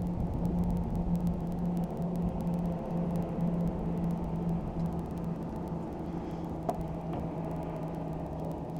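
Boat's outboard engine running steadily with a constant low hum while the boat is under way, with a low rumble of wind and water beneath it.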